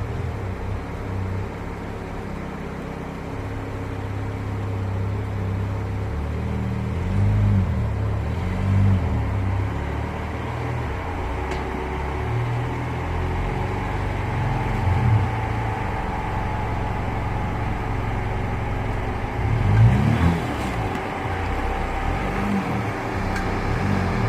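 A vehicle engine running under load and revving up and down several times, with a rumble underneath.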